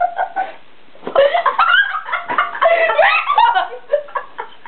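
Girls laughing: a burst of giggling starts about a second in and lasts about three seconds, then dies away.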